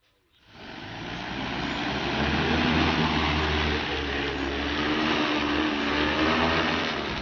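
Large multirotor crop-spraying drone's propellers spinning up from rest about half a second in, swelling over a second or so into a loud steady hum as the drone lifts off and climbs.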